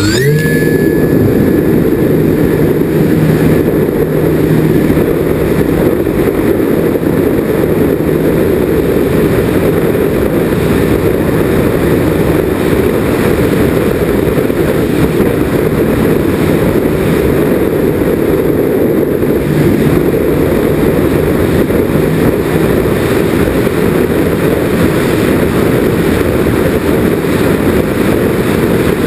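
The twin motors and propellers of a Nitroplanes Grand Cruiser RC plane, heard from a camera mounted on the plane, reach full speed right at the start and then run steadily through the takeoff and climb, under heavy wind rush.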